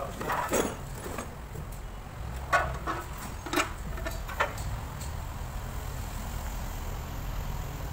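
Steady low mechanical rumble, with a few short sharp knocks and clicks about half a second, two and a half, three and a half and four and a half seconds in.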